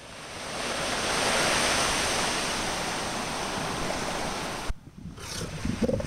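Steady wash of Pacific surf with wind on the microphone, fading in over the first second. About three-quarters of the way through the noise drops away suddenly, and a few short, low calls from the hauled-out elephant seals follow near the end.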